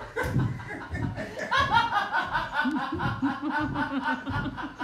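Laughter: a run of quick, rhythmic 'ha-ha' pulses, about five a second, starting about a second and a half in.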